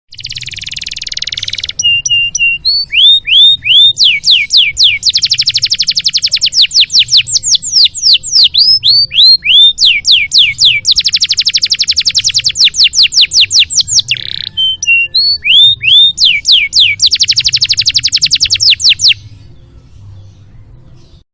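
Domestic canary singing: short whistled notes sliding down in pitch alternating with long, very rapid trills. The song stops about two seconds before the end, leaving a faint low hum.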